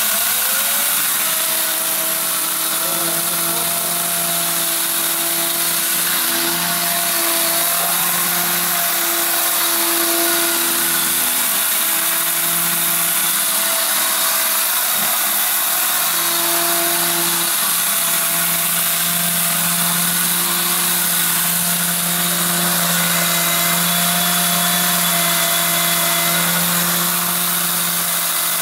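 Electric grain crusher set to grain mode spins up with a rising whine in the first second, then runs steadily, grinding mixed grain into meal. Its motor hum holds steady over a dense grinding hiss.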